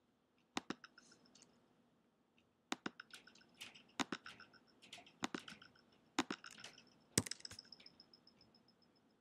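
A run of sharp clicks from a computer mouse and keyboard, about a dozen, many in quick pairs, several followed by a faint high ringing that fades.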